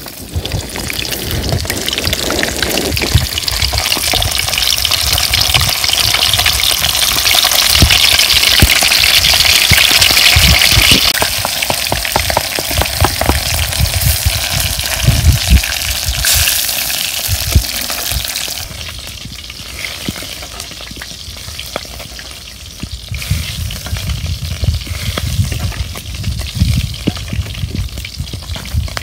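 Fish frying in hot oil in a shallow wok, a loud steady sizzle stirred with a metal spatula. The sizzle is strongest for the first ten seconds or so and dies down to a softer crackle about two-thirds of the way through.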